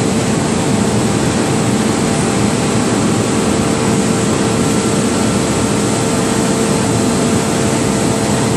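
Heavy forging-press machinery in a steelworks forge shop running with a loud, steady roar and a constant hum underneath, with no separate blows.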